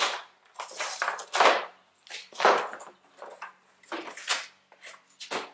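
Plastic packing strap snipped, then cardboard protective sheets scraping and rustling as they are pulled off the core of a new replacement radiator, in a series of short rasps.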